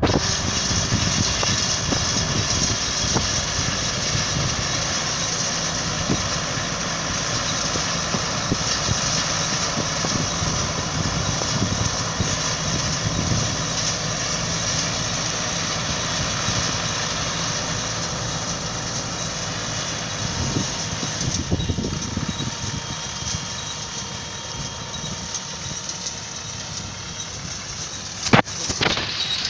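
Tractor-drawn hay baler at work: the tractor engine and the baler's machinery running steadily, with one sharp knock near the end.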